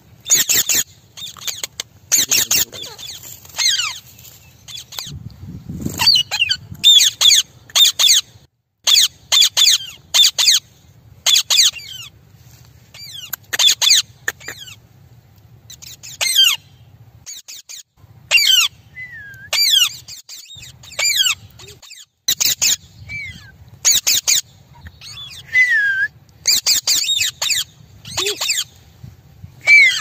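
Rose-ringed parakeets calling: runs of short, high, shrill squawks with gaps between them, and now and then a clear whistle that drops in pitch.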